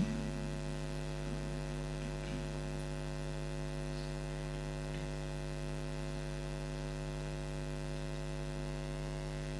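Steady electrical mains hum from the microphone and sound system: a low 50 Hz buzz with a stack of steady overtones, unchanging throughout.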